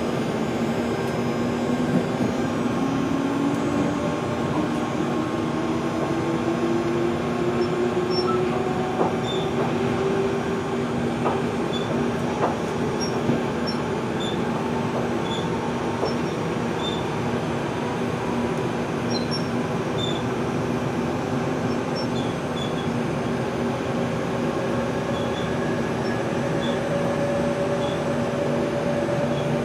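Interior of a Z 8800 (Z2N) suburban electric train's motor car under way: steady rumble of wheels on rail, with the whine of the chopper-controlled traction motors rising slowly in pitch as the train picks up speed. A few sharp clicks from the track are heard.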